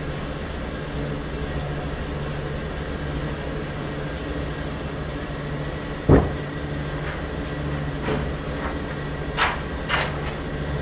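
Steady low hum of running machinery. A single loud knock comes about six seconds in, and a few lighter knocks follow near the end.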